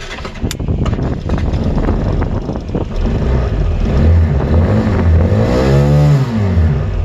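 Rismotor Specar 250 motorcycle taxi's 250 cc water-cooled engine starting on its electric starter and running. Near the end it is revved once, its pitch rising and falling.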